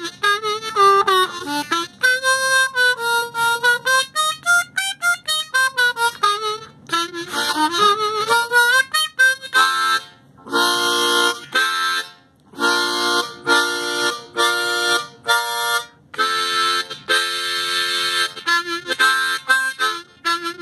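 A new Hohner MS-series diatonic harmonica with its stock plastic comb, played as a test. For about the first nine seconds it plays single notes bent up and down in pitch, then rhythmic chords with a couple of short breaks.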